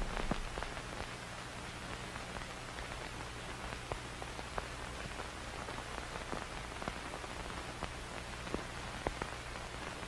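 A recording's noise floor: faint steady hiss with a low hum and scattered crackling clicks, after the last of the music fades out in the first second.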